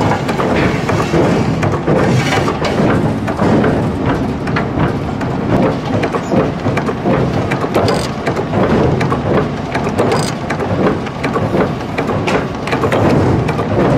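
Forging hammer striking red-hot steel in its dies, blow after blow in quick, uneven succession, over a steady loud noise.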